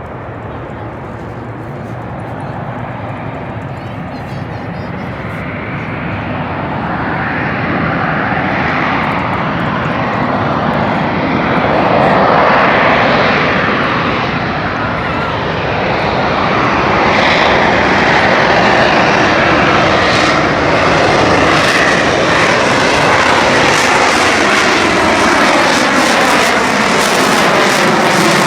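Airplane engine noise from a fixed-wing aircraft flying past, growing steadily louder over the first dozen seconds and then staying loud.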